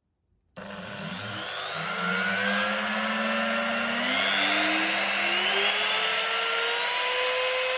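Handheld wood router switched on about half a second in and run free with the bit spinning in the air, not cutting. Its motor whine climbs in steps as the variable speed setting is turned up.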